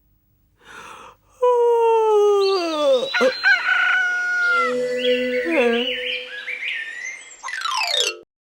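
Cartoon vocal sound effects. After a brief pause and a faint breath, a loud pitched cry slides steadily down, then gives way to warbling, bird-like chirps and glides and a held tone. It ends with a quick downward sweep.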